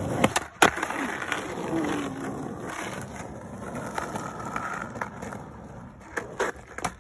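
Skateboard wheels rolling on asphalt: a steady rumble that slowly fades as the board coasts, with a couple of sharp clacks of the board on the pavement near the start and a few more near the end.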